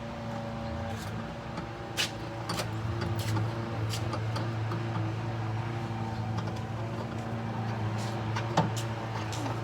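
Small metal clicks and taps of bolts, washers and a bracket being handled and fitted by hand, a few sharp ones about two seconds in and again near the end, over a steady low hum.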